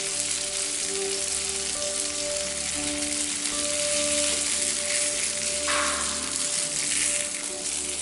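Coconut oil cooked with fresh herb juice sizzling hard and frothing in a steel pan. It is in the foaming stage, while the water from the juice boils off.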